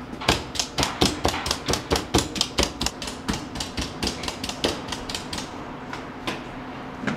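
Quick, even knocks of a tool striking raw meat on a cutting board, about five a second, stopping after about five seconds, then two single knocks near the end.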